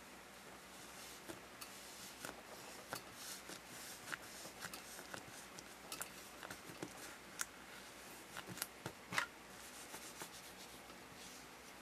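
Hands kneading and pressing soft yellow toy dough on a plastic mat: faint rubbing and handling noise with scattered light taps and clicks, the loudest a little after nine seconds.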